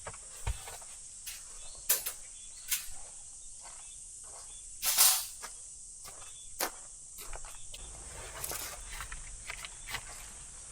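Irregular knocks and rustles, the loudest about five seconds in, over a steady high-pitched insect drone, typical of crickets.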